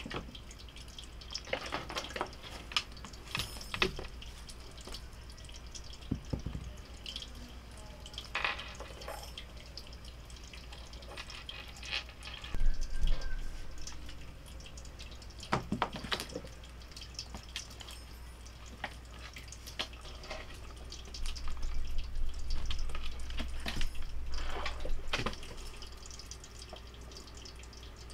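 Scattered light taps and clicks of a cat batting a small ball around a wooden floor, with its paws and claws skittering on the boards. Two louder stretches of scuffling and bumping come in the middle and later on.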